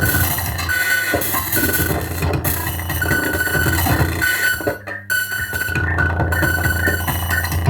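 Instrumental electronic music: synthesizer keys over a steady bass line, with a brief drop in level about five seconds in.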